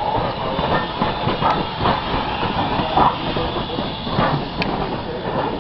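Norfolk & Western 475, a 1906 Baldwin 4-8-0 steam locomotive, passing close by at low speed: steel wheels on the rails, irregular clanks from the running gear, and steam hiss.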